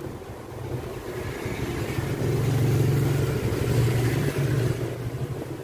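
A low motor rumble that builds up over a couple of seconds, is loudest about halfway through, then fades away.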